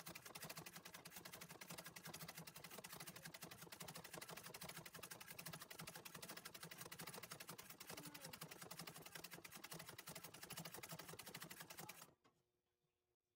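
Antique treadle sewing machine stitching free-motion embroidery: a faint, rapid, even ticking of the needle that stops abruptly near the end.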